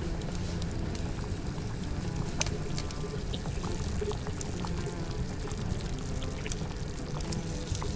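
Steady sound of liquid, like pouring, with scattered light clicks, over background music.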